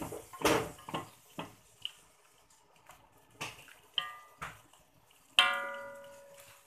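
Chopsticks stirring rice vermicelli in water in a metal pot, with splashing and clicks against the pot in the first second and a half. About four seconds in a brief metallic ring sounds, and a little later a sharp knock on the pot leaves it ringing, fading out over more than a second.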